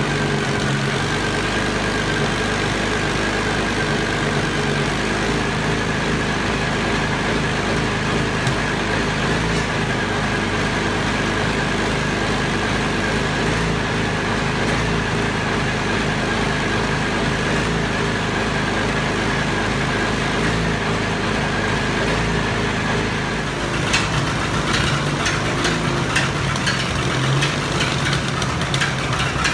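Caterpillar D4 crawler's diesel engine idling steadily. Near the end a faint high whine stops and a fast metallic clicking and rattling joins the running engine.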